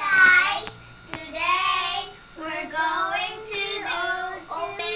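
Young children singing, several short sung phrases with brief pauses between them.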